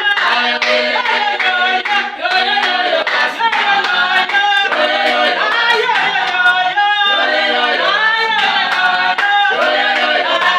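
A group of voices singing a gospel praise song, with hands clapping along in a steady beat.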